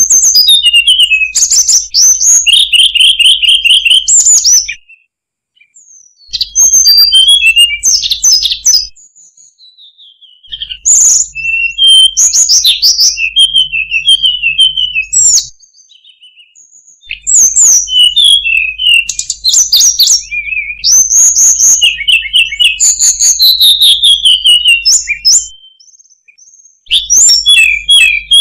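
Hill blue flycatcher song: high, fast, varied warbling phrases delivered in bouts of several seconds with short pauses between them, five bouts in all, with a crackle of clicks running through each bout.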